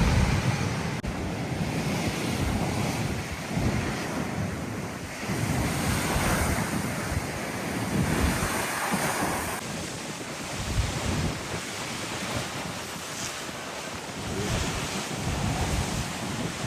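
Rough sea surf at a high tide breaking and washing, swelling and easing every few seconds, with strong wind gusts buffeting the microphone in a low rumble.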